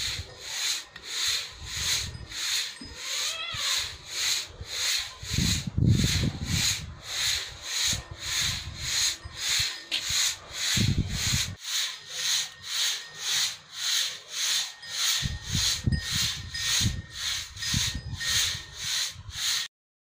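Grain swishing across a round sieve on a homemade pivoting stand as it is shaken back and forth by hand, a steady rhythm of about two strokes a second. It cuts off suddenly near the end.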